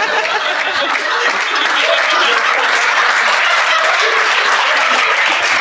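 Audience applauding, a dense, even clapping of many hands.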